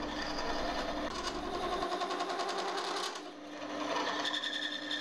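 Wood lathe spinning a walnut blank while a 10 mm parting tool hollows out the end grain, giving a fast, even chatter over the lathe's running tone. The cut eases off briefly about three seconds in, then resumes.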